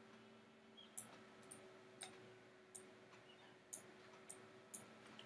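Faint computer mouse clicks, about six scattered over a few seconds, over a low steady hum.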